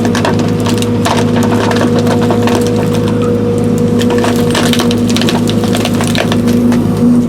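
Link Belt 210 excavator's diesel engine running steadily under load while wood cracks and splinters repeatedly as the tree and its roots are torn out of the ground.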